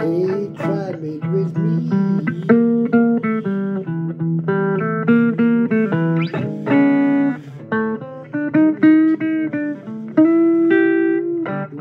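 Blues guitar playing an instrumental break: a quick run of picked single notes over steady bass notes, some of them gliding in pitch.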